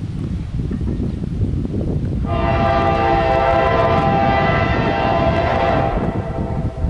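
Norfolk Southern freight locomotive's horn sounding one long blast of about three and a half seconds, starting about two seconds in, as the train nears the grade crossing. A steady low rumble runs underneath.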